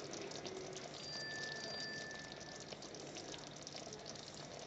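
Stockfish, potato and tomato stew simmering in a pot near the end of cooking: faint steady bubbling with many small pops.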